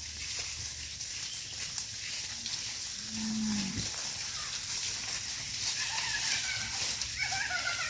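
A cow mooing once about three seconds in: a short, low call that holds its pitch and then drops at the end.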